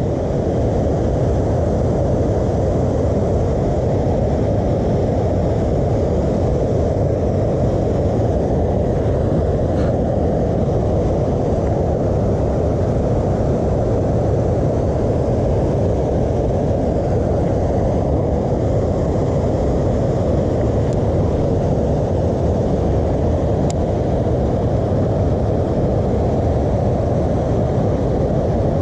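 A steady, loud, low rushing noise with no pitch, unchanging throughout.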